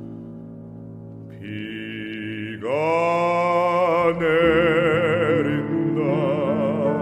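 Korean art song: a baritone voice slides up into a long held note with wide vibrato about two and a half seconds in, over sustained accompaniment, and moves to another vibrato note near the end.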